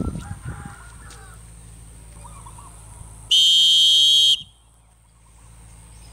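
A falconry recall whistle blown once, a shrill steady blast of about a second, calling an eagle owl in to fly back to its handler.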